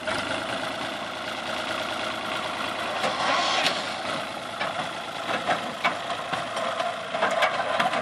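Farm tractor engine running as it pulls a loaded trailer away, with a few sharp clatters in the second half.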